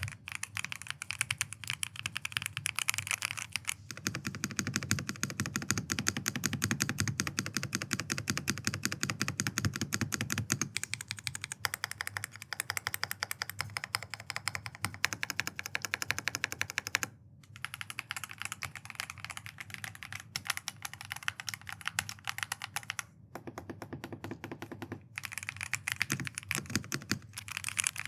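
Fast typing on a Keychron P6 Ultra 8K full-size mechanical keyboard with factory-lubed Keychron Silk POM linear switches in a gasket-mounted, foam-damped aluminium case. It is a dense, continuous run of key clacks with brief pauses about 17 and 23 seconds in.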